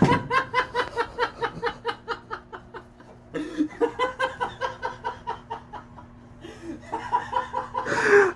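A person laughing hard in long runs of quick rhythmic 'ha' pulses, about five a second, with a brief pause about three seconds in.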